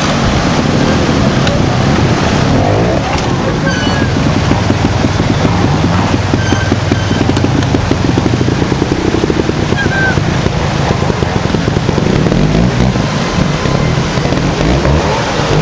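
Trials motorcycle engines running at low revs, over the steady rush of a rocky stream.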